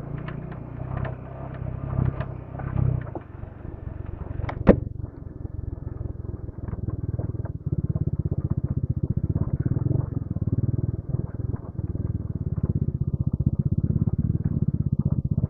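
Motorcycle engine running, with scattered small clicks and rattles. There is one sharp click about a third of the way in. From about halfway the engine settles into a steady, even beat.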